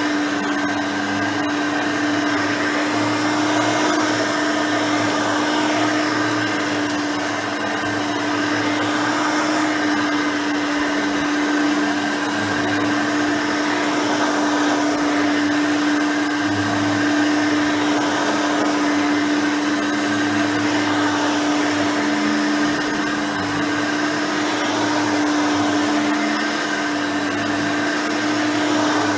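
Hoover Elite 5.0 upright vacuum running steadily on its rebuilt original 5-amp motor and 7-blade fan: a steady hum over the rush of air, swelling gently in loudness every few seconds.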